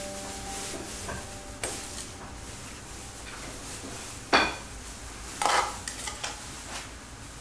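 Steel ladle clinking against porcelain soup bowls as broth is ladled in, with one loud ringing clink about four seconds in and a short splash of soup soon after.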